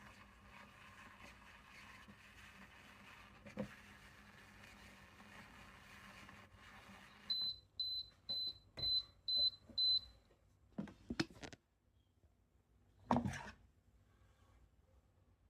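An electric kitchen appliance runs with a steady low hum, then stops and gives six short, high beeps at about two a second, the signal that its cycle is done. A few knocks and clunks of handling follow.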